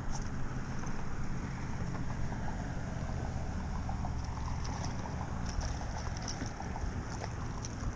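Steady low wind rumble on the microphone over open water. In the second half come a few faint high ticks and splashes, as a small hooked fish thrashes at the surface beside the kayak.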